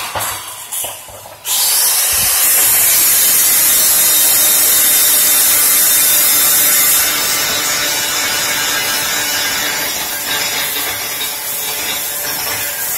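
MIG welder arc crackling and hissing steadily as a bead is run. It breaks off briefly just after the start and picks up again about a second and a half in.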